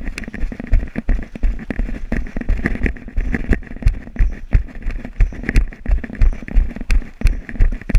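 Running footsteps heard from a helmet-mounted camera: heavy thumps about two or three a second, with gear rattling and sharp clicks mixed in.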